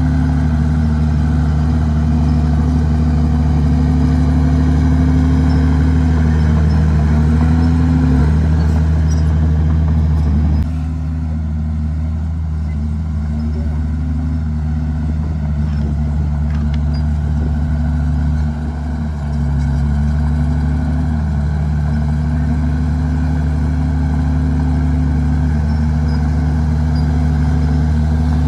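Komatsu D51PX bulldozer's diesel engine running steadily under load, its pitch sagging briefly again and again as it works. About ten seconds in the engine quietens a little, and it picks up again after a short dip about two-thirds of the way through.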